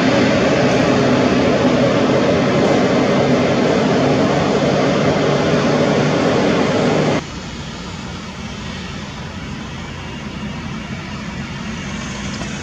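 Jet airliner engines running loud and steady, with several low tones through the noise, as the jet moves along the runway. The sound cuts off suddenly about seven seconds in and gives way to a quieter, steady jet engine noise from a taxiing business jet.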